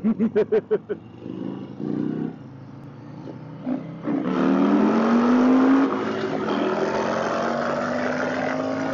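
Indian Chieftain's 126-cubic-inch big-bore Thunderstroke V-twin pulling hard under acceleration about four seconds in, its pitch rising and then holding steady, with wind noise building alongside.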